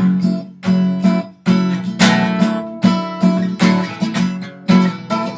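Acoustic guitar strummed in a steady rhythm, about two strokes a second, playing the instrumental gap between the sung chorus and the next verse.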